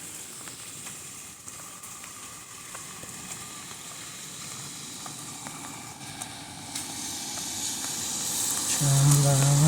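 Steady hiss of rain, growing louder over the last few seconds, with a voice starting near the end.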